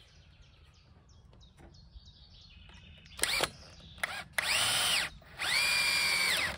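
Bosch cordless drill driving screws into wooden boards: a couple of short blips about three seconds in, then two runs of about a second each, the motor whine rising as it spins up and dropping as it stops. Birds chirp faintly before the drill starts.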